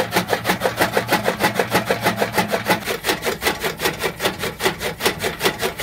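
Bull-driven chaff cutter (toka) chopping green fodder: a rapid, even train of cuts, several a second, over a low steady hum.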